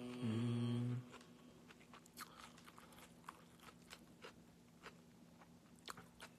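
A man's low held vocal note for about the first second. Then irregular crisp crunching as raw greens are bitten and chewed close to the microphone.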